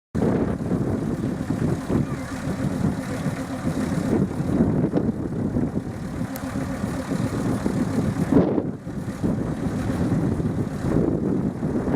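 Miniature railway train running, a steady mechanical rumble with a short dip about eight and a half seconds in.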